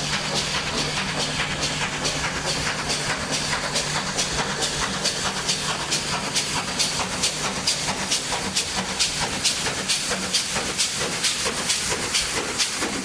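Small steam tank locomotive working a train, its exhaust chuffing in a quick, even beat over a steady hiss of steam, growing louder as it draws near.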